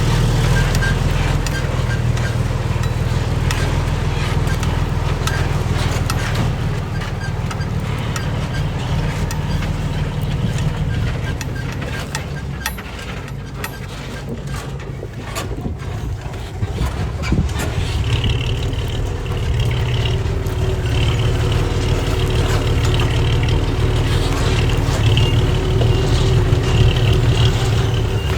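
Heavy diesel earthmoving machinery running steadily, its engine note easing off in the middle and then building again. A high-pitched wavering tone joins about two-thirds of the way through.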